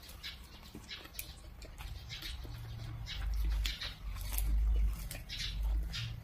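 Close-miked eating of fried momos: crisp bites and chewing with wet mouth clicks at irregular intervals, and a heavier low rumble of chewing or handling about three to five seconds in.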